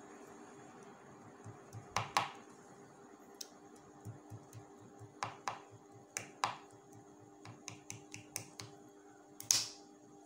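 Scattered sharp clicks and soft rustling from hands working small fabric petals with needle and thread, the loudest clicks about two seconds in and near the end, over a faint steady hum.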